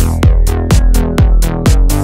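Electronic background music with a steady kick-drum beat, about two beats a second, over sustained synth notes.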